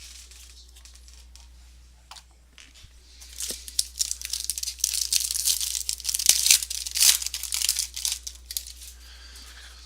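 A foil trading-card pack being torn open and its wrapper crinkled: a burst of tearing and crackling that starts about three seconds in and lasts about five seconds.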